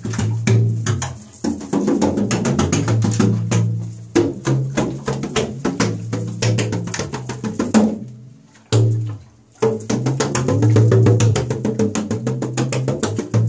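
Water jug drum: a large plastic water-cooler jug with water inside, slapped quickly by hand in a rhythm, giving deep hollow thumps with tones that bend in pitch. The playing breaks off briefly about nine seconds in, then starts again.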